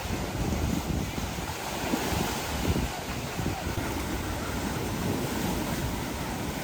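Wind buffeting the microphone in uneven low gusts over a steady rushing noise.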